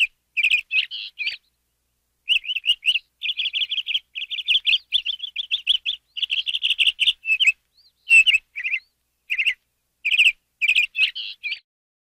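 Domestic canary singing: quick, high chirping trills and rolls in rapid phrases, broken by a short pause about a second and a half in, and stopping just before the end.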